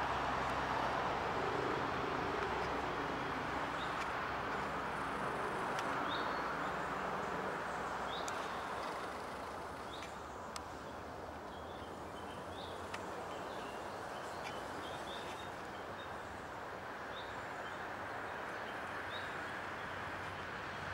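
Steady outdoor background rumble with short, high bird chirps every second or two from a few seconds in, and a couple of faint clicks.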